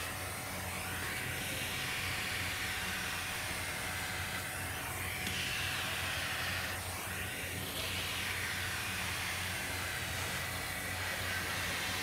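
Kärcher WD 3 wet-and-dry vacuum cleaner running, its floor nozzle drawing air across a hard floor: a steady rushing hiss over a low motor hum. The hiss thins briefly a couple of times as the nozzle moves.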